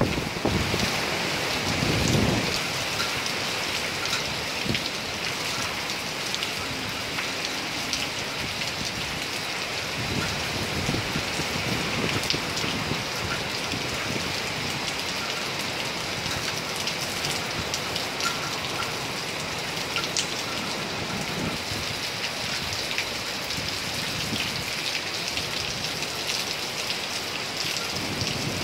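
Heavy typhoon rain pouring steadily in a dense, even hiss, with a few brief low rumbles rising and fading under it.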